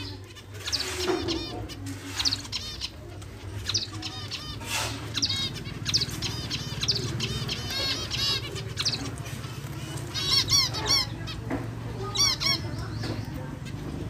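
Zebra finches calling in an aviary: quick runs of short chirps, often several birds at once, busiest around ten and twelve seconds in, over a low steady hum.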